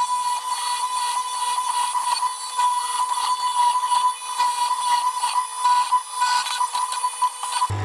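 Hollow-chisel mortiser running as its chisel plunges into the wood to cut a mortise: a steady high-pitched whine with ragged, uneven cutting noise on top. It cuts off suddenly near the end.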